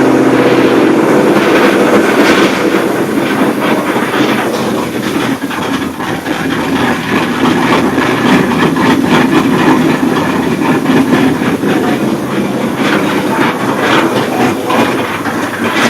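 Cammed Ford 5.0 L (302) V8 running loud, its exhaust a rapid, choppy stream of pulses.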